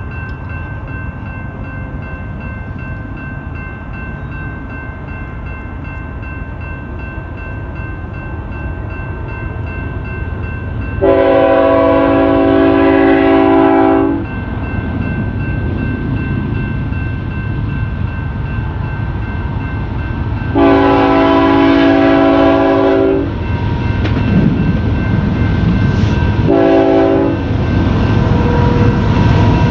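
BNSF diesel freight locomotive sounding its multi-note air horn in the grade-crossing pattern: a long blast about 11 seconds in, a second long one about 21 seconds in, a short one about 27 seconds in, and the final long blast just starting at the end. Under the horn, the low rumble of the approaching train's engines and wheels grows steadily louder.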